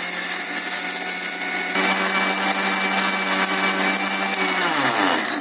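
Electric kitchen mixer grinder running at speed, grinding dry red chillies, salt, turmeric and coriander seeds to a fine powder. Near the end it is switched off and winds down, its pitch falling.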